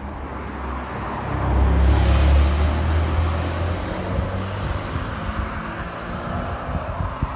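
A car driving past. Its engine and tyre noise rise to a peak about two seconds in, then fade away.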